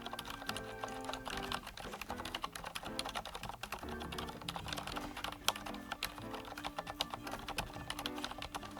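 Typing on a GAMAKAY LK67 mechanical keyboard, a fast, irregular run of key clicks, with background music under it.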